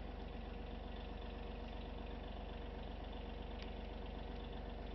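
Small John Deere compact tractor engine idling steadily.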